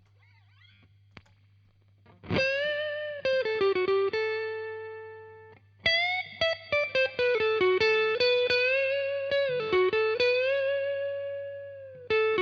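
Fender Stratocaster electric guitar through a Fender Hot Rod Deluxe III amp, playing single-note lead phrases with string bends and vibrato. The phrases start after a short pause about two seconds in, with a long held note near the end, over a steady low hum from the rig.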